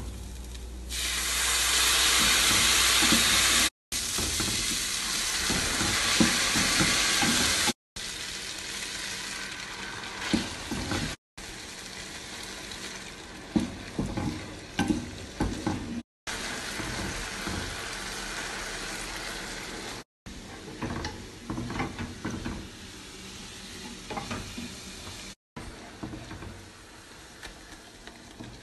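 Risotto rice sizzling in a hot pan as chicken broth is added a little at a time, with a wooden spatula stirring and scraping through it. The sizzle is loudest over the first several seconds; later it is quieter, with the spatula knocking and scraping against the pan.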